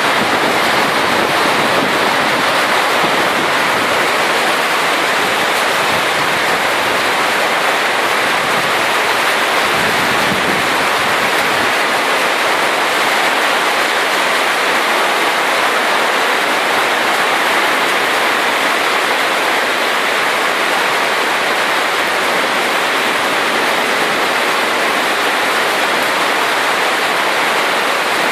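Heavy rain pouring down in a cloudburst, a loud steady hiss that never lets up.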